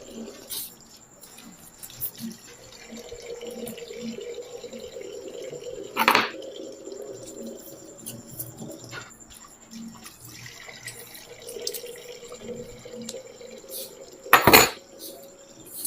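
Purple kinetic sand being cut and scooped with a metal melon baller: soft, moist crunching and scraping with small crackles. There are two louder, sharper scrapes, about six seconds in and near the end.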